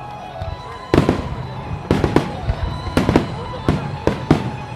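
Aerial fireworks shells bursting overhead in a quick, irregular series of sharp bangs, each trailing off in echo. The bangs begin about a second in.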